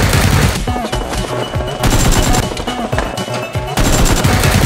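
Rapid automatic gunfire in several long bursts with short breaks between them, over background music.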